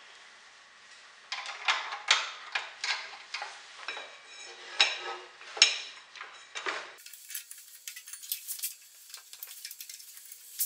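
Scattered metallic clinks and knocks of hands working a drive belt onto a snowblower's drive pulley and handling the metal chassis. About seven seconds in, the sound turns thin, with lighter ticking.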